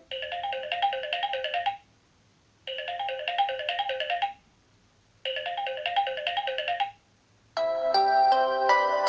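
Samsung Galaxy A6 ringtone: a short electronic ring phrase of quick stepped notes, played three times with brief pauses between. Near the end a different, fuller melodic ringtone begins.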